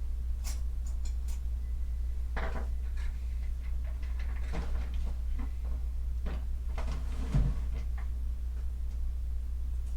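Scattered knocks and clicks of objects being handled and moved about, as when rummaging for tools, with a louder thump about seven and a half seconds in, over a steady low hum.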